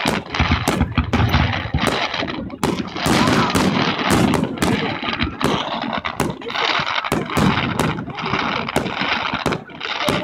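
Aerial firework shells bursting: a rapid, irregular string of sharp bangs and crackles, with heavier low booms about a second in and again around the middle.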